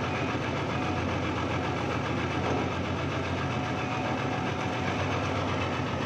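Old backhoe's engine running steadily at idle.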